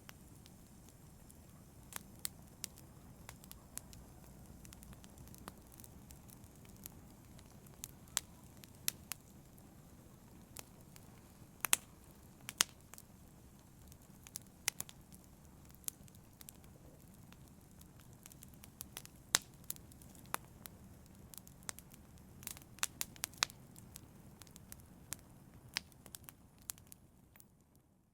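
Wood fire in a fireplace crackling: irregular sharp pops and snaps over a low steady rumble of the flames. It fades out to silence near the end.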